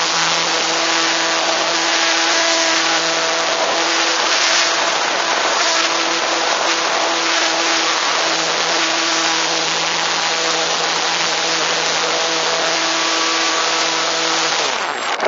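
The electric motor and propeller of an EasyGlider RC motor glider run at a steady pitch, heard from a camera mounted on the plane over heavy wind rush on the microphone. The motor tone stops shortly before the end.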